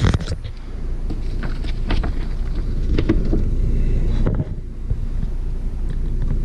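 A steady low rumble, with light crackling rustles of a paper instruction sheet being handled.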